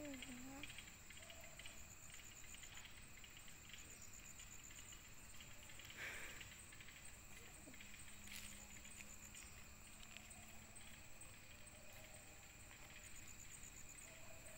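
Near silence with insects chirping faintly, short trills of high ticks every few seconds.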